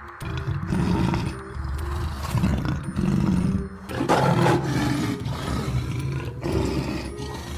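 Male lion roaring: a run of deep, repeated roars, one after another with short breaks between them.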